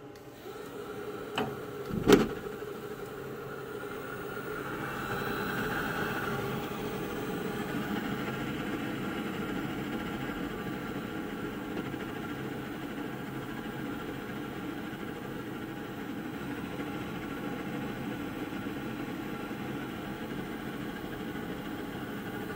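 Navien NR-240A tankless water heater: two sharp clicks about a second and a half and two seconds in, then its combustion blower and burner running with a steady low hum that swells slightly a few seconds later.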